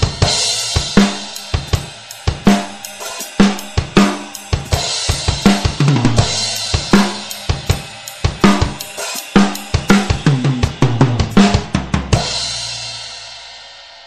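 Pearl drum kit with Sabian cymbals played in a steady beat: bass drum, snare, hi-hat and cymbal strokes. About twelve seconds in the playing stops on a final cymbal crash that rings and fades away over about two seconds.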